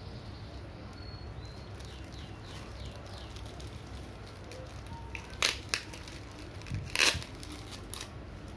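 Plastic packaging crinkling as it is handled, bubble wrap and a clear plastic bag around an LCD panel. There are two loud crackly rustles, the first about halfway through and the second a second and a half later, with a smaller one just after, over a steady low hum.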